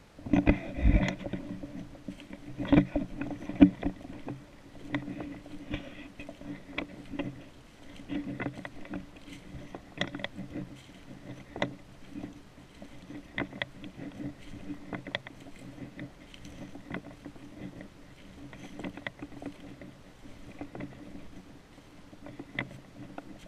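Footsteps crunching and rustling through deep dry fallen leaves. They start abruptly with a loud burst and carry on as uneven crackles and crunches at walking pace.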